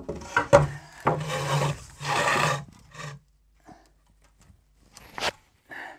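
A timber board being slid over the wooden supports of a shelf frame: a few light knocks, then two scraping pushes of wood rubbing on wood, and another knock near the end.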